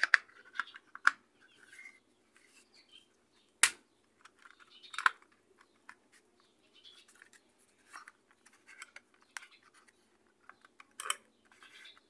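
Plastic parts of a Maytag washing-machine timer being handled and fitted together: scattered light clicks and knocks, the sharpest a little under four seconds in and again about five seconds in.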